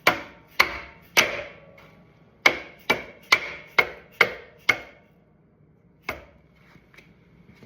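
Light hammer taps driving a part through on a 1974 BMW R90S motorcycle: about nine sharp taps in the first five seconds, each with a short metallic ring, then a single lighter tap about six seconds in.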